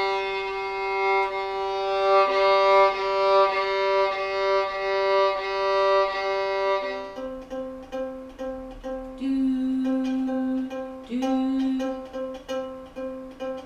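Violin bowed on one long held note for about seven seconds, then a lower sustained note with a ukulele plucked over it.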